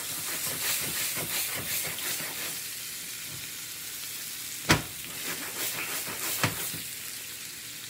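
Hanger steak frying in butter and garlic in a cast-iron skillet: a steady sizzling hiss with spitting crackles. A sharp knock about two-thirds of the way through and a smaller one shortly after.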